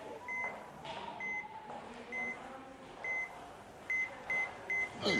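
Hospital patient monitor beeping at a single pitch, at first about once a second, then quickening to about two beeps a second near the end.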